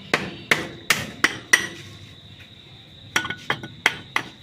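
Hammer blows on the metal casing of an e-rickshaw motor being taken apart: two runs of about five sharp strikes each, with a pause of about a second and a half between them.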